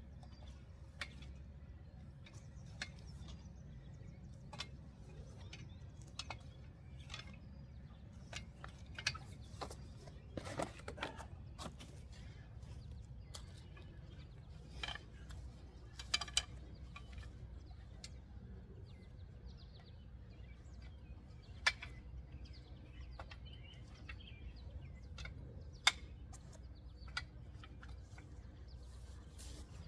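Sporadic light clicks and knocks of a Springfree trampoline's fiberglass mat rods being handled and seated into the frame, irregularly spaced, with a few sharper single knocks, over a steady low background rumble.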